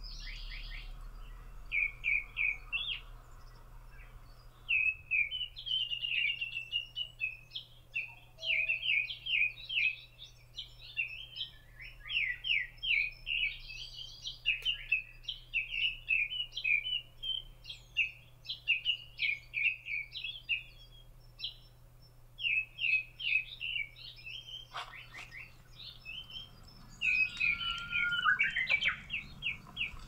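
Wild songbirds singing: quick runs of high chirping notes repeated every second or two, with a lower, curving call near the end.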